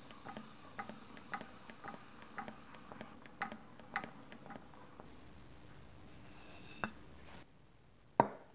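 Faint regular ticking, about two ticks a second, that stops about halfway through. Near the end comes one sharp knock as a small turned wooden box is set down on a wooden workbench.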